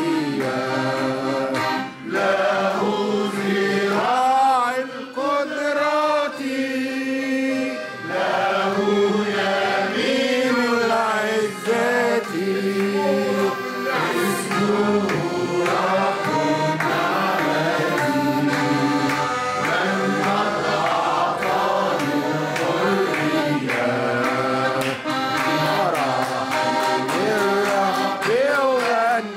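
Arabic Christian hymn sung to accordion accompaniment, the melodic vocal line moving over steady sustained accordion chords.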